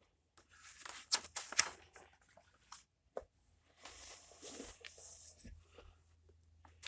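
Paper pages of a puzzle instruction booklet rustling as they are turned and handled, in two spells of rustling with a few sharp clicks.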